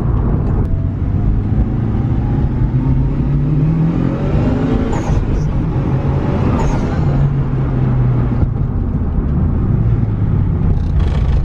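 Turbocharged four-cylinder engine of a Mitsubishi Lancer Evolution VI Tommi Mäkinen Edition pulling hard under acceleration. Its pitch climbs and drops back a couple of times as it changes gear.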